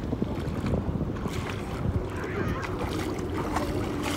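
Wind rumbling on the microphone over lapping river water, with splashing from a swimming child near the end.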